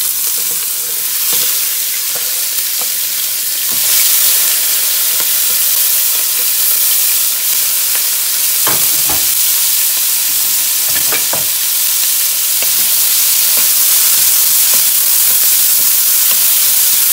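Chopped onion, red bell pepper, jalapeño and garlic sizzling in hot oil in a nonstick pan. The sizzle starts suddenly as the vegetables go in, grows a little louder about four seconds in and then holds steady, with a few clicks of the stirring spoon against the pan.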